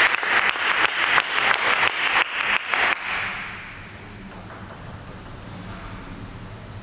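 Applause and clapping from a small crowd after a point, dying away about three seconds in, leaving a quiet hall with a low hum.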